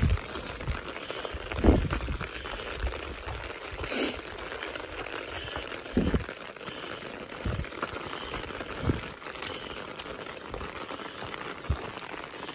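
A hiker walking a rocky mountain trail: a steady hiss with irregular low thumps and rustles from steps and the carried phone, and a brief higher rustle about four seconds in.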